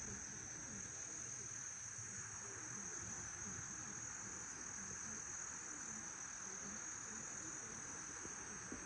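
Insects, crickets or cicadas, trilling in a steady, unbroken high-pitched drone.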